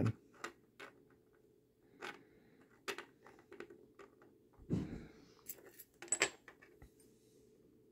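Scattered light clicks and taps of small metal padlock parts being handled and set down on a plastic pin tray, with a soft thump about five seconds in and the sharpest click shortly after.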